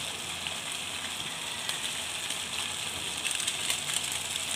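Mussels and tofu cooking in sauce in a wok on a gas stove, giving a steady sizzling hiss with scattered crackles from about three seconds in.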